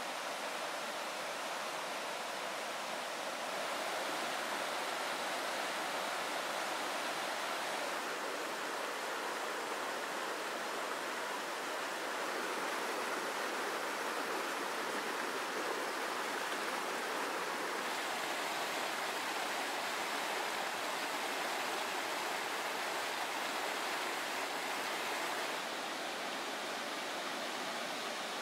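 Small mountain creek rushing over rocks and through small cascades: a steady water rush that shifts a little in tone a few times.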